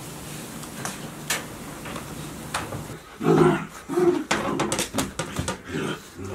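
Golden retriever puppies play-fighting: light clicks and taps for the first few seconds, then, from about three seconds in, a run of short growls and yaps among more clicks.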